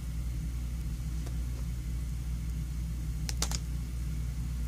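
Steady low electrical hum, with a brief crinkle of a foil trading-card pack being handled and set down about three and a half seconds in.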